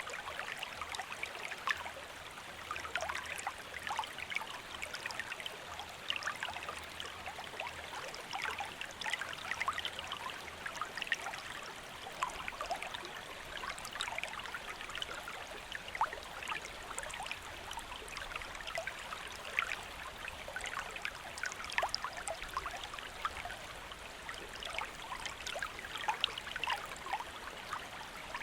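Small river or stream flowing steadily over rocks, a constant rushing with many little splashes and gurgles throughout.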